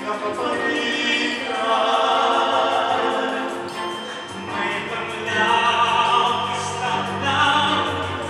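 Male tenor vocal group singing in harmony through handheld microphones, the phrases swelling and easing back. A low held note comes in about halfway through.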